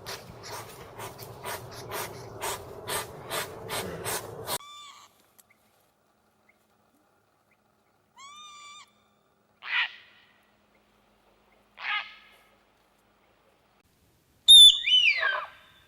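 Rapid, even clicking or tapping, about three a second, that stops after about four seconds. After a pause come several short animal calls: a brief whistle-like note, two short harsh calls, and near the end a loud call that falls in pitch.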